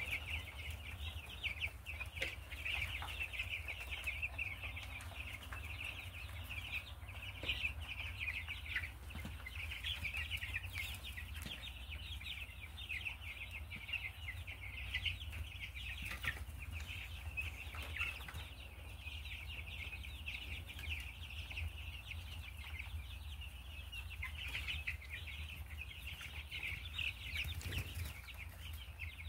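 A flock of 13-day-old Cornish Rock Cross meat chicks peeping continuously, many short high chirps overlapping, over a steady low hum.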